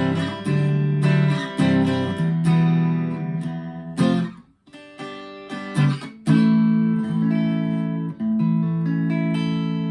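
Harley Benton TE-52 telecaster in the middle pickup position, played clean through a Vox AV15 amplifier: chords strummed and left to ring, with a brief stop about four seconds in before the chords start again.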